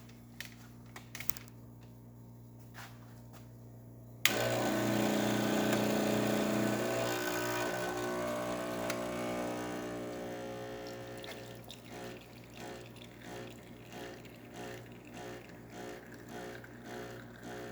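Pasquini Livia 90 espresso machine's pump switching on abruptly about four seconds in after a few clicks, then humming steadily as it pushes water through the group. It is loudest at first, then eases into a regular pulsing strain, which the technician puts down to very finely ground coffee holding back the flow.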